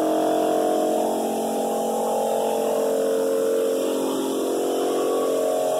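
Ridgid Shop-Vac motor running steadily, drawing air through a Dust Deputy cyclone and hose, a constant hum with a hiss of moving air.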